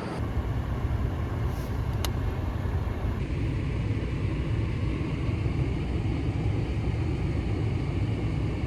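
Car engine idling, heard from inside the car as a steady low rumble. A single faint click comes about two seconds in.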